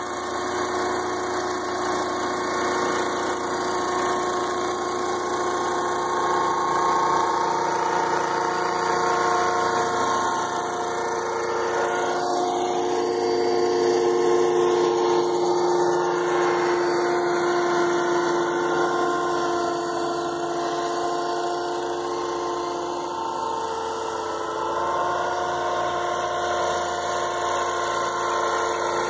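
Electric RC model Chinook helicopter in flight: its motors and two three-blade rotor heads give a steady whine of several tones, which shifts in pitch a couple of times, around the middle and again near the end.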